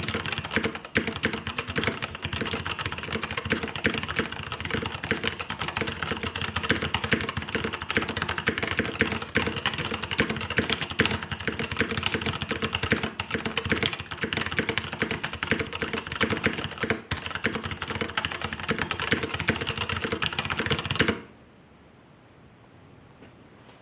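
Fast, continuous typing on a custom mechanical keyboard with 67 g Zealio tactile switches, PBT keycaps and an aluminium top plate: a dense run of key clicks that stops abruptly near the end.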